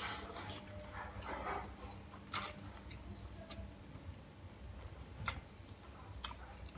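A person slurping in a forkful of fried instant noodles and chewing, with a few sharp wet mouth clicks and smacks.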